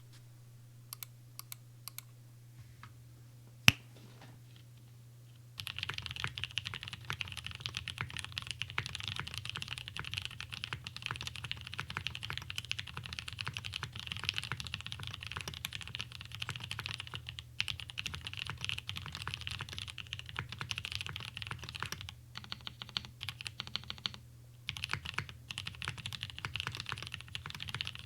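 Mechanical keyboard with tub-lubed Gateron CAP V1 switches in a top-mounted aluminum plate, being typed on. A few scattered keystrokes and one sharp knock come first, then fast continuous typing from about five seconds in, with a short sparser stretch near the end. A steady low hum runs underneath.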